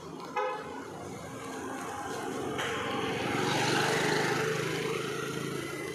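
A short vehicle horn toot, then a motor vehicle passing close by, its engine hum and road noise swelling to a peak and fading away.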